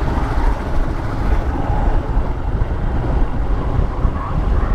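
Wind buffeting the microphone over the steady running of a Royal Enfield Himalayan 411's single-cylinder engine while riding at speed.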